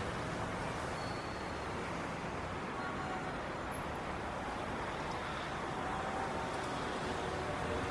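Steady city road-traffic ambience: an even hum of cars on a street, with no single vehicle standing out.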